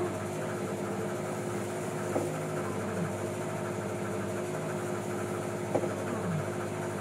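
A boat's engine running steadily with an even hum. Two short knocks come about two seconds and about six seconds in.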